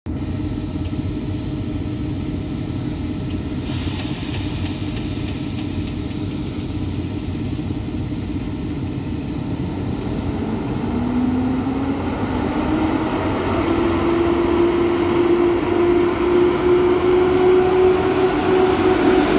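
PKP EP07 electric locomotive hauling passenger coaches as it starts away. About halfway through, a whine rises in pitch as it gathers speed, and the sound grows louder as it draws close.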